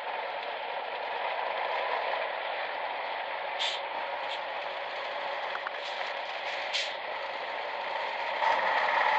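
Military off-road truck's engine running as the truck drives slowly downhill, a steady rushing noise. A few brief high squeaks or clicks come through in the middle.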